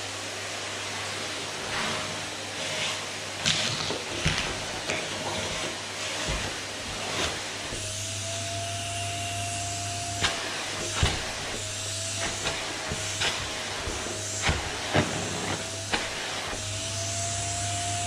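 Vacuum cleaner running steadily as its hose nozzle is worked over sofa upholstery, its motor tone stepping up and down a little at times. Sharp knocks and taps are scattered through.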